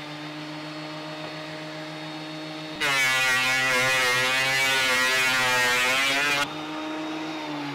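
Electric hand planer motor running free, then shaving along a wooden board for about three and a half seconds from about three seconds in, much louder while it cuts, then running free again.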